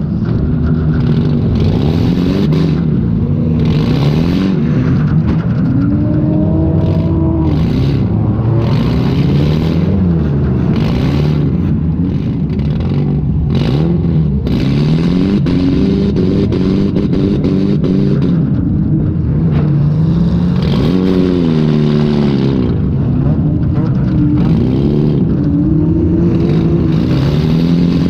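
Demolition derby car's engine heard from on board, revving up and falling back over and over as the car drives and reverses, with scattered bangs and clatter of metal.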